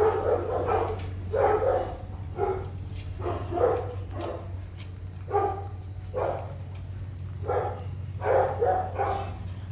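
Rottweiler puppies whimpering and yapping: short pitched cries about once a second, over a steady low hum.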